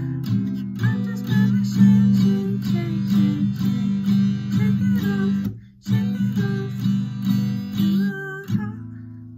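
Acoustic guitar strumming chords, with a brief break just past halfway. Near the end a last chord is left to ring and fade out.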